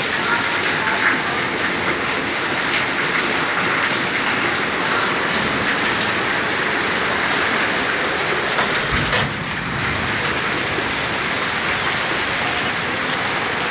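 Heavy rain falling steadily on paved ground and walls, with one brief thump about nine seconds in.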